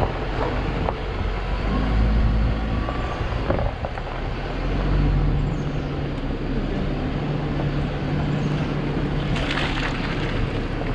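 Vehicle driving along an unpaved road: a steady low engine hum under a constant rush of tyre and road noise.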